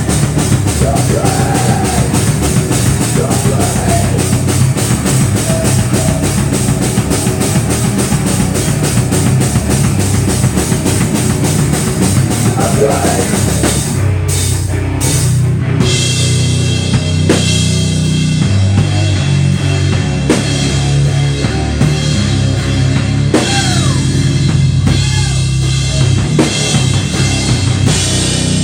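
Live rock band playing loud: electric guitar, bass guitar and drum kit with cymbals. There are a few brief stops around the middle before the band comes back in.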